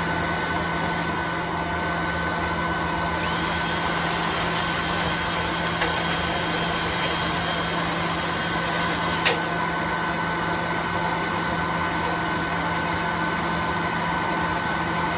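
Dryer vent cleaning blower motor running steadily with a hum and a whine. Its airy hiss grows louder about three seconds in and drops back with a sharp click a little after nine seconds.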